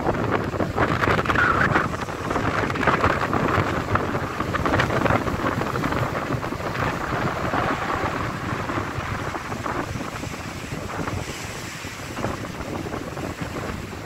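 Strong gusting wind buffeting the microphone over the wash of waves breaking and churning in rough sea; the wind eases a little in the last few seconds.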